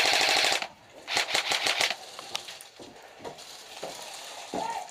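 Airsoft gun firing on full auto: a rapid burst that stops about half a second in, a second shorter burst about a second in, then a few scattered single shots.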